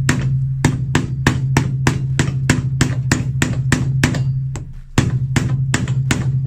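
Hammer rapping steadily on old nails in a shoe's sole, about three blows a second with a brief lull near the middle, driving the nails through so they can be pulled out. Background music with a steady bass tone runs underneath.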